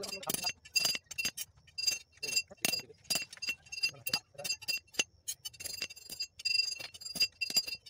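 Hand hammer striking a steel bar on a small steel anvil block: a quick, uneven series of blows, each with a clear ringing metallic clink.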